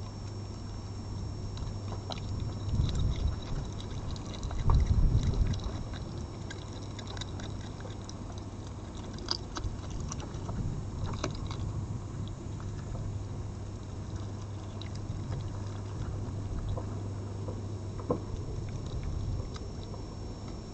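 A red fox eating from plates of food, heard as scattered faint clicks and crunches over a steady low hum. A low rumble swells twice in the first six seconds and is the loudest sound.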